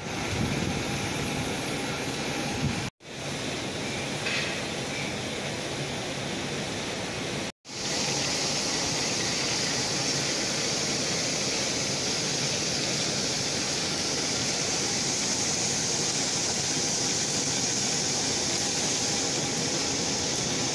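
Belt-driven workshop machine running steadily while it cuts a spinning blue plastic piece into curly shavings. The noise cuts out twice and restarts, and from about eight seconds in a steady high hiss joins it.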